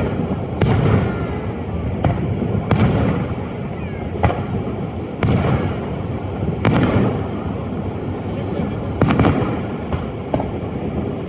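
Aerial fireworks going off: a string of sharp bangs, about eight in eleven seconds, some trailed by crackling. A steady low rumble runs beneath.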